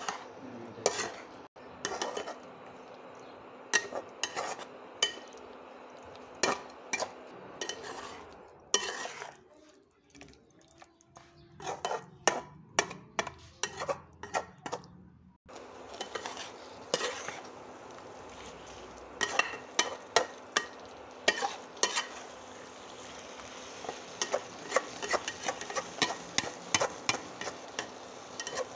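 Spatula stirring spinach paste and chicken pieces in a pan, with repeated sharp clacks and scrapes of the spatula against the pan over a steady background hiss. The hiss drops away for several seconds midway while the stirring clacks go on.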